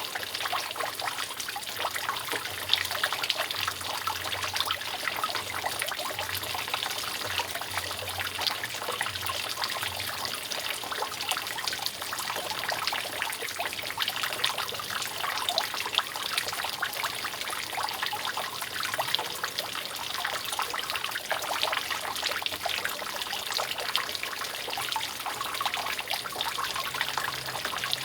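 Water dripping and trickling steadily off a roof: a dense, even patter of many drops over a running trickle.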